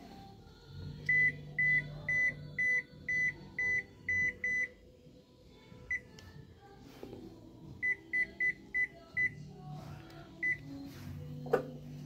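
Toshiba top-loading washing machine's control panel beeping: a run of about eight short beeps at one pitch, roughly two a second, then a single beep, then five quicker beeps and one more. It is the alarm of a machine in fault, its panel lights blinking continuously. A sharp click comes near the end.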